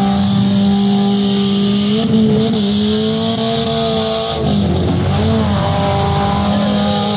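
Demolition derby cars' engines running hard at high revs. The engine pitch holds steady, then wavers and dips about two seconds in and again around four and a half seconds in.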